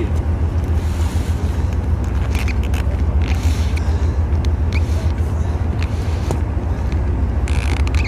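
Steady low engine rumble, even throughout, with a few faint clicks and hisses over it.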